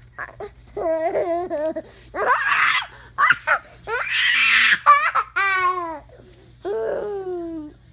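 A toddler laughing and squealing in a string of high-pitched bursts while being play-wrestled: wavering squeals, two breathy shrieks, and one squeal that falls in pitch.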